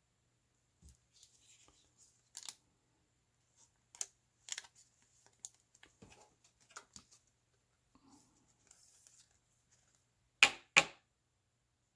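Baseball trading cards being handled: faint rustles, slides and clicks of card stock, with two sharp, louder taps in quick succession near the end.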